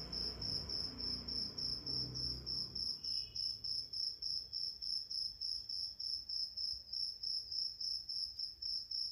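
Steady high-pitched chirping, pulsing about four times a second, like a cricket's. A low rumble runs under it for the first three seconds, then stops.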